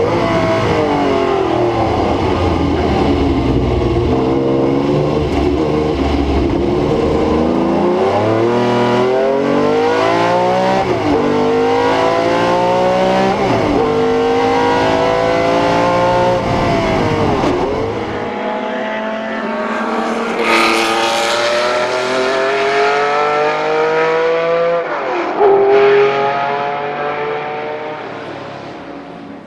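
Ferrari 512 M's V12 racing engine under hard acceleration, heard onboard. Its pitch climbs through each gear and drops back at every upshift, about every two to four seconds. The sound fades out near the end.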